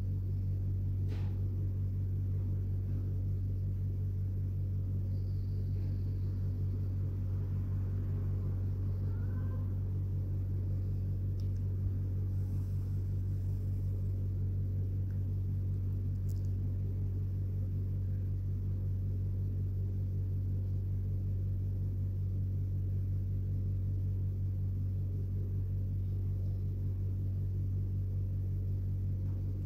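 A steady low hum at an even level throughout.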